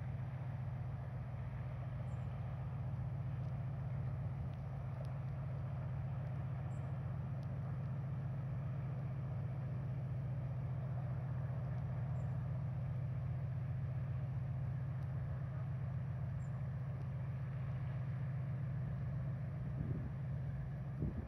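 Steady low drone of a passing 189-metre bulk carrier's engine, unchanging throughout, with a fainter hiss above it.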